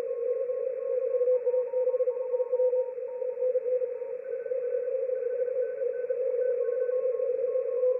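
Morse code (CW) received on shortwave through an SDR receiver: several stations keying at different pitches at once, some overlapping, over a loud steady rough tone and receiver hiss. This is a pileup of stations calling the 3Y0J Bouvet Island DXpedition.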